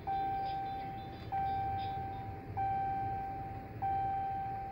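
2016 Ram 1500's dashboard warning chime sounding after the ignition is switched on: a single-pitched chime repeated four times, about every second and a quarter, each note starting sharply and fading away.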